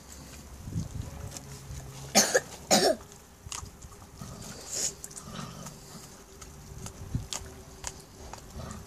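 Two loud coughs about half a second apart, a couple of seconds in, over faint chewing and tearing as puppies eat a raw stingray.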